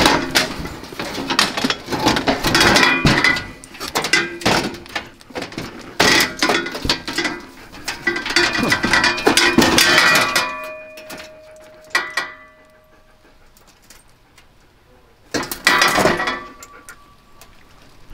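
Stamped sheet-steel panels of a Haulmaster garden cart being handled and fitted together, clanking, rattling and scraping in bursts, with one brief ringing tone after a knock. Things go quiet for a few seconds, then a last burst of clanking comes near the end.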